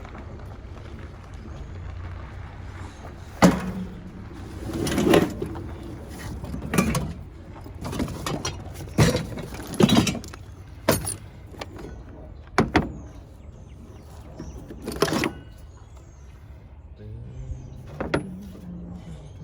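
Irregular metal knocks, clanks and short scrapes as parts of a Rinnai tankless water heater are handled and taken apart for scrap, over a steady low hum.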